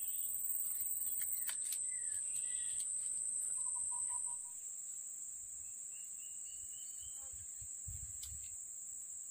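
Steady high-pitched drone of a forest insect chorus, with a few short bird chirps and a brief pulsed call. About four seconds in, the drone drops slightly in pitch and gets quieter.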